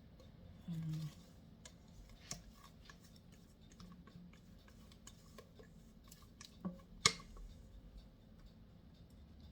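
Scattered light clicks and taps of a spatula and cake pans being handled while spreading batter, with a sharper knock about seven seconds in.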